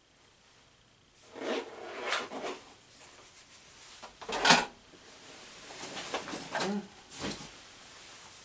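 Someone rummaging through a drawer for tools: sliding and clattering in a few bursts, with the loudest knock about halfway through.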